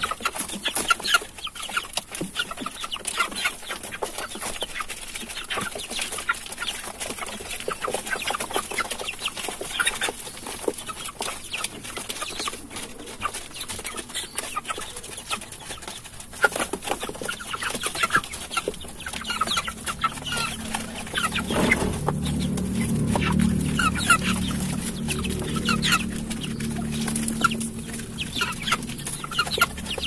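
A flock of white broiler chickens clucking and calling in short, repeated notes. About two-thirds of the way through, a low steady hum starts up beneath the calls.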